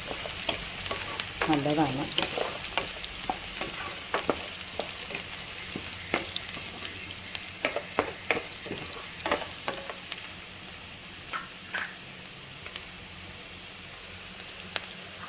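Chopped onion and garlic sizzling in hot coconut oil in a pan, with a spatula stirring and knocking against the pan in scattered clicks that grow sparser in the second half.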